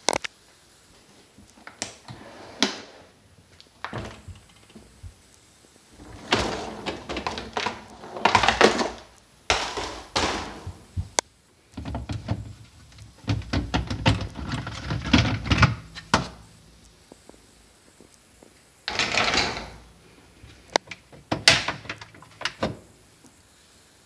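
GE QuietPower 3 dishwasher being opened and taken apart by hand: the door opens, then the plastic lower spray arm and filter parts clunk, click and scrape as they are lifted out, in separate knocks and scraping stretches of a second or two.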